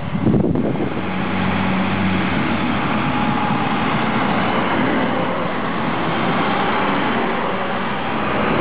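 Diesel engine of a Stadler Regio-Shuttle RS1 railcar running steadily close by, with a low hum under a steady noise.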